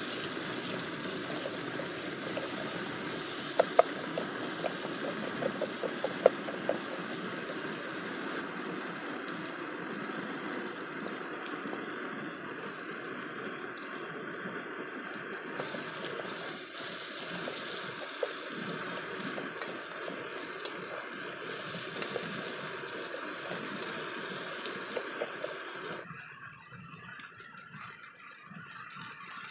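Sliced onions and spices sizzling in oil in a small steel camping pot. A few sharp metal clicks from stirring come a few seconds in. The sizzle dies down sharply near the end as cold cooked rice is tipped into the pot.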